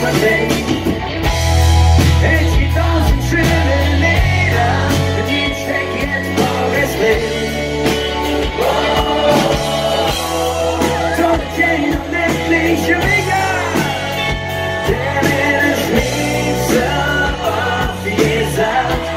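Live rock band playing a song with a lead singer over bass, guitar and drums.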